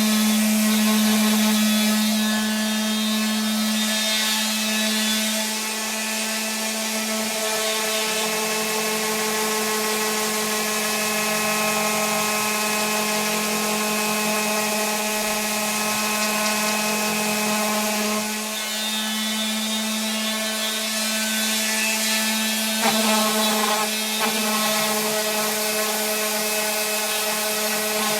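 Electric sander running steadily on wood: a constant motor hum with a sanding rub, and a brief knock about 23 seconds in.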